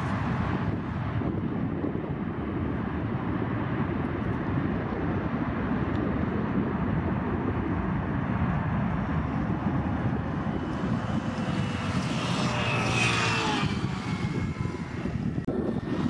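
Boeing 737 MAX 8's CFM LEAP-1B jet engines rumbling steadily as the airliner rolls out down the runway after landing, with a falling whine about twelve seconds in as the engines spool down.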